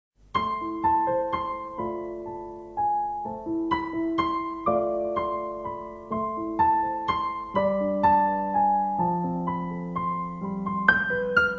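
Solo piano playing a melody of single struck notes over held chords.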